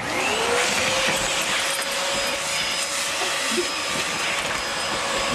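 Vacuum cleaner switched on: its motor spins up with a rising whine over the first half second, then runs steadily with a high whine over a rush of air through the hose and wand.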